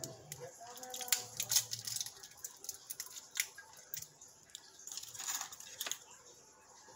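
Irregular sharp clicks and taps with small water splashes in a turtle tank as small turtles swim and clamber over the rock decor, with a brief splash about five seconds in.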